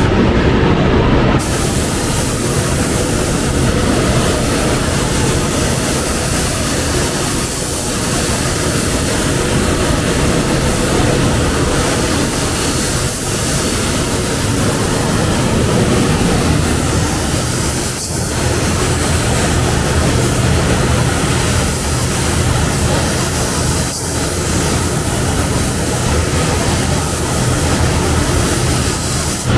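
Air spray gun hissing steadily as clear coat is sprayed onto a car body panel, with brief dips in the hiss every five or six seconds between passes.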